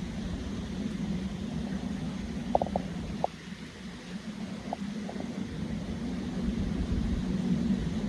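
Steady rain and wind noise with a deep low rumble, dipping briefly a little past three seconds in and building toward the end, with a handful of short ticks near the middle.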